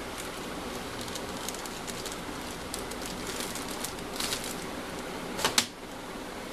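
Plastic wrapping crinkling and rustling as a digital caliper is pulled out of it, over a steady hiss, with a sharp click about five and a half seconds in.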